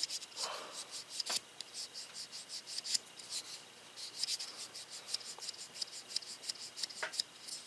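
Buck 284 Bantam lockback folding knife being worked open and shut over and over to break in its pivot: a quick run of light clicks and scraping of the blade in the handle, with a couple of sharper clicks about a second and three seconds in.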